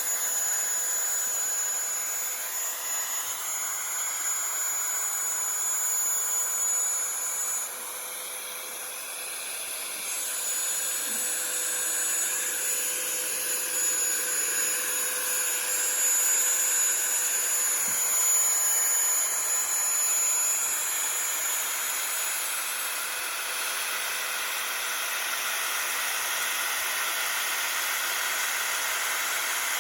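X-Carve desktop CNC router's spindle running and a 1/8-inch up-cut bit milling 2 mm aluminium sheet: a steady hiss under a high whine. The whine drops out for a couple of seconds about eight seconds in and stops about twenty-two seconds in.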